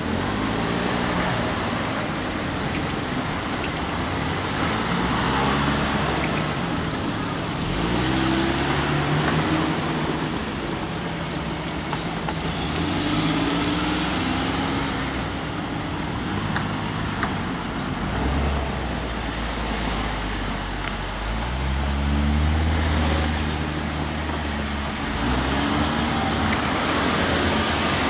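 Road traffic: cars and trucks pulling away one after another, each engine rising in pitch through its gears, over a steady wash of tyre noise. A deeper engine rumble builds in the second half.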